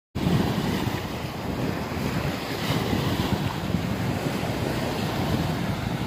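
Small Caspian Sea waves breaking and washing up a sandy shore in a steady surf wash, with wind buffeting the microphone.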